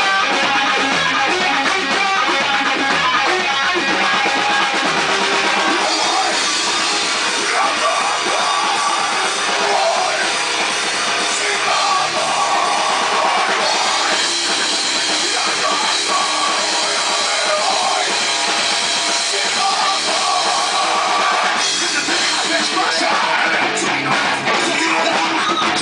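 A rock band playing loud and without a break: drum kit and electric guitar.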